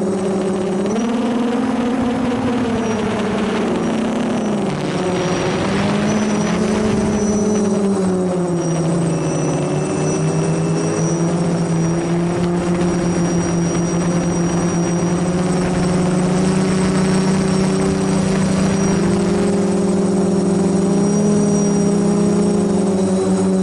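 DJI F450 quadcopter's four brushless motors and propellers, recorded by the camera on board: a loud, steady buzzing hum. Its pitch rises, dips and wavers through the first several seconds as the throttle changes, then holds steady.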